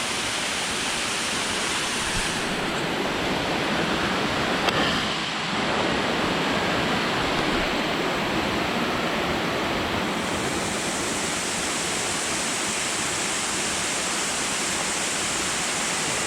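Steady rushing of falling water, an unbroken even noise with no rise or fall.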